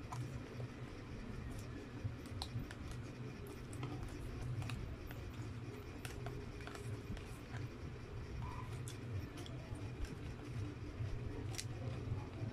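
White plastic spoon scraping and tapping in a paperboard takeout box as the last noodle bits are picked up, a scatter of small sharp clicks, over a steady low hum.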